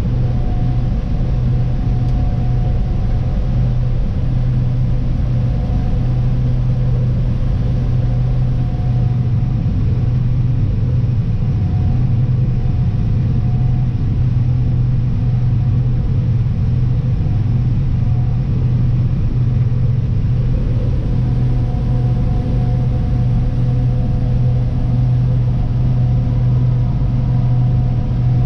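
Diesel engine of heavy farm machinery running at a steady speed, an even low hum that does not change throughout.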